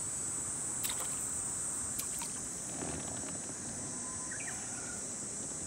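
Steady high-pitched drone of insects, with a couple of faint clicks about one and two seconds in.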